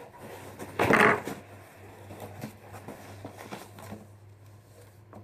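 Mail packaging being handled and opened by hand: a loud rustle about a second in, then quieter scattered handling noises over a low steady hum.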